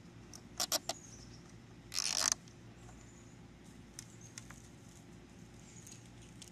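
Nylon zip tie being threaded and pulled through its locking head: three quick plastic clicks, then a short ratcheting zip about two seconds in.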